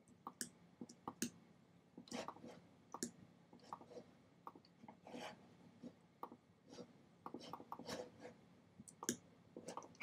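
Faint, irregular clicking of a computer mouse as design elements are selected and edited on screen, several short clicks in uneven clusters.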